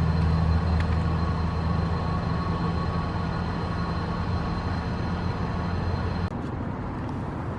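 Steady low mechanical hum with a few constant tones, heard from inside a car near a gas compressor station. About six seconds in it drops a little and the higher part of the sound fades away.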